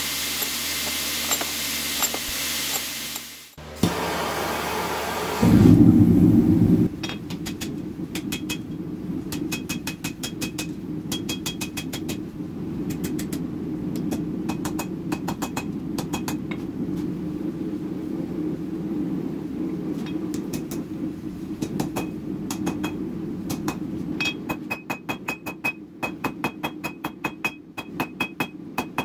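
Hand hammer striking red-hot half-inch round steel bar on an anvil: a long run of sharp blows, each with a ringing note, over a steady low hum. The blows come in quicker, more distinct strokes near the end. Before the hammering, a few seconds of steady noise end in a short loud burst.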